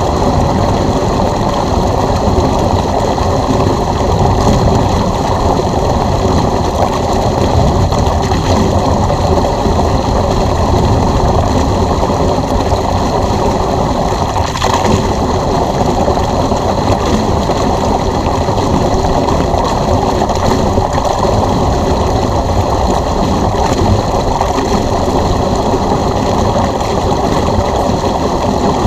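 Electric pool pump running steadily while water gushes out through its drain hose, a continuous rushing noise with a faint motor whine above it.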